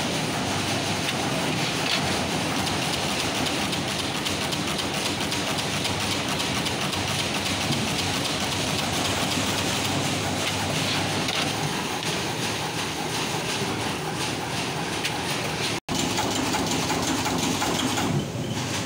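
Automated circuit-board assembly machine running: a dense, fast mechanical clatter over a steady hiss. It cuts out for an instant about three-quarters of the way through.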